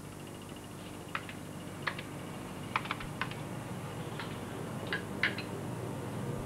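Laboratory glassware and bench equipment being handled: a few short, sharp, irregular clicks and clinks over a low steady hum.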